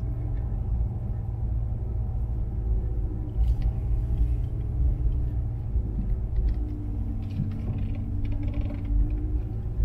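Steady low rumble of a car's engine and tyres, heard from inside the cabin while it drives slowly along a campground road.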